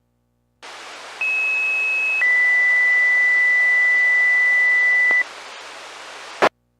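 Two-tone sequential fire pager alert tones received over a VHF low-band radio: static hiss as the squelch opens, then a higher tone for about a second followed straight away by a lower tone held about three seconds. The hiss carries on briefly after the tones and ends with a short squelch-tail crack.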